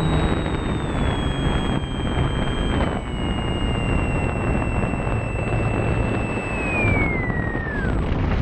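Electric motor and spinning propeller of a Great Planes Electrifly Cub RC model plane, heard from an onboard camera over loud airflow rush. A high whine sinks slowly in pitch, then falls away quickly near the end as the motor is throttled back for landing.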